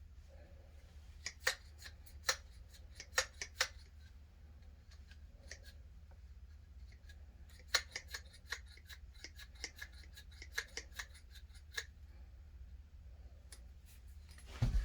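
Irregular sharp clicks and clacks of the pipe extender kit's hard parts being handled, in two clusters with a few more near the end, over a faint low hum.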